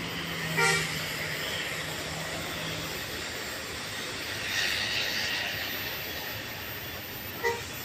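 Two short toots of a vehicle horn, one about half a second in and another near the end, over steady road noise. A low engine hum runs for the first few seconds, and a rushing noise swells and fades in the middle.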